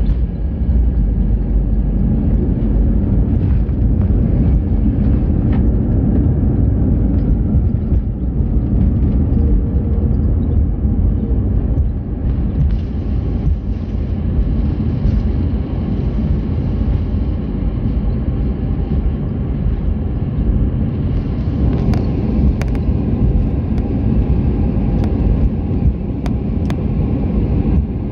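Airbus A321 airliner cabin noise: a loud, steady low rumble of the engines and airflow heard from a window seat, with a few sharp clicks or rattles near the end.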